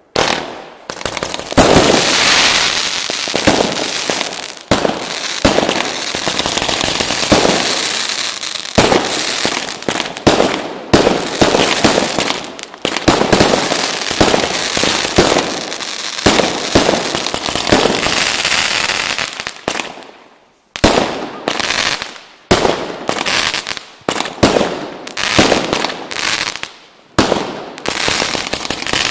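Fireworks going off: a dense, rapid run of bangs and crackling, then a short break about twenty seconds in, followed by a quick series of separate bangs.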